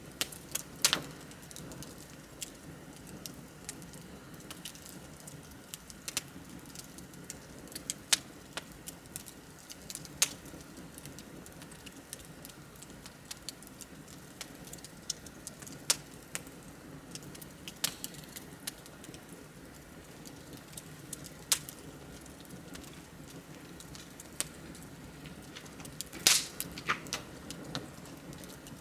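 Wood campfire crackling: a low steady hiss with sharp pops at irregular intervals, a second or more apart, the loudest about a second in and near the end.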